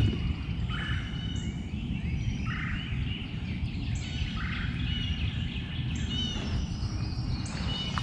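Wild birds singing and calling in flooded woodland. One call repeats about every two seconds, with higher thin chirps and whistles between, over a steady low rumble.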